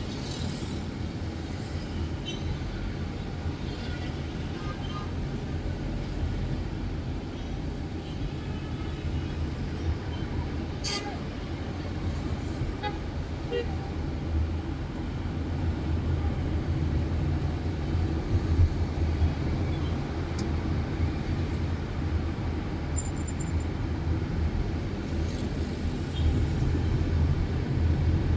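Steady rumble of road traffic, with a short, loud, high-pitched sound like a horn toot near the end.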